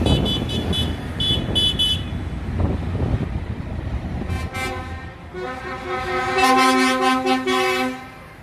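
Passing tractors' engines rumble while a horn gives a quick run of short, high-pitched toots in the first two seconds. From about four seconds in, a lorry's deeper air horn sounds in long, loud blasts until near the end.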